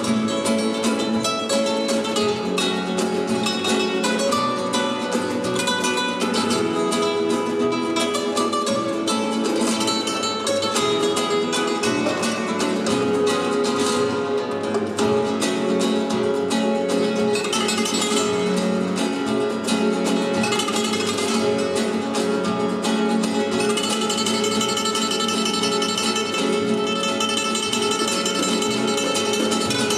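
Live flamenco music: two flamenco guitars playing a piece together with fast picked passages, backed by a cajón.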